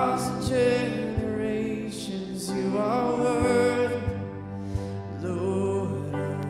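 Worship band playing a slow worship song: sung vocals over acoustic guitar and sustained chords with a held bass.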